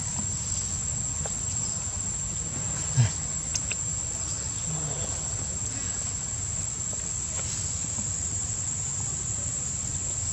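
Insects droning in one steady high-pitched tone, with a single short knock about three seconds in.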